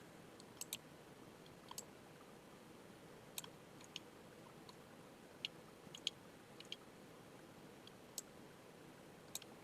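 Faint computer mouse and keyboard clicks, about a dozen spread irregularly, over quiet room tone.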